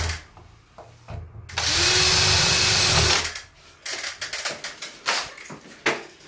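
Electric drill with a 3mm bit drilling a rivet hole through a patio-door lock fitting: the motor runs up and drills for about a second and a half, stopping about three seconds in. A few light clicks and knocks follow.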